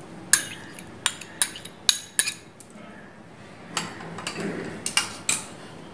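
A metal spoon clinking and scraping against glass bowls as thick sour curd (yogurt) is spooned out onto the salad. It makes a series of sharp clinks, most of them in the first half and again near the end, with a softer scrape in between.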